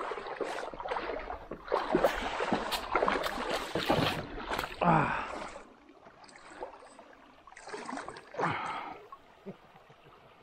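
Shallow river water splashing and sloshing as someone wades in and lowers a fish into the water by hand to release it. The splashing is heaviest through the first half, then it eases off with one more shorter burst later on.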